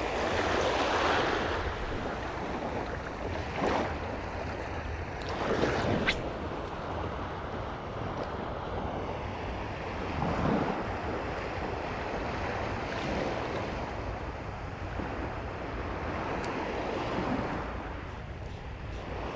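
Small sea waves washing and lapping in shallow water at the shore, with wind on the microphone; the wash swells at the start and again about ten seconds in. A few brief sharp sounds come between about four and six seconds in.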